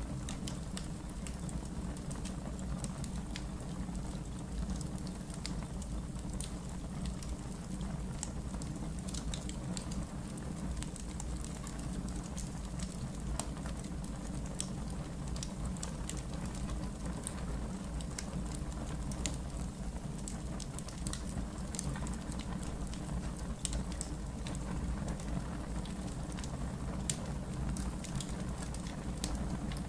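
Wood fire burning in a fireplace: a steady low rumble under frequent sharp crackles and pops from the logs, scattered irregularly.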